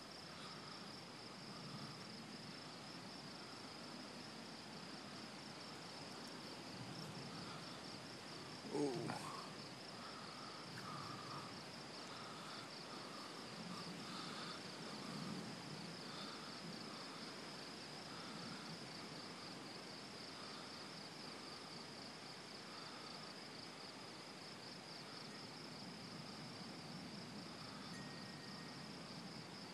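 A steady high trilling chorus of crickets, with a fainter, lower call repeating about once a second beneath it. About nine seconds in, a brief rising sound stands out above the chorus.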